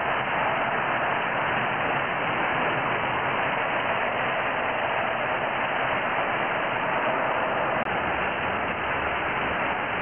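HO-scale slot car trucks pulling long trailer trains running continuously around a plastic slot track: a steady, even whir of the small electric motors and the wheels and pickups on the track.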